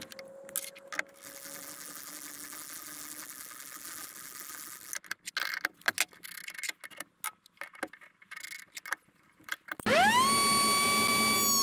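Table-mounted router spinning down with a fading whine, then metal clicks and clinks of wrenches on the router collet. About ten seconds in, the router switches on with a quickly rising whine that settles into a steady high whine.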